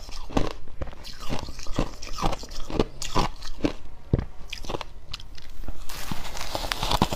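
Freezer frost being bitten and chewed close to the microphone: a steady run of dry crunches, about two to three a second, with a softer crackling hiss near the end.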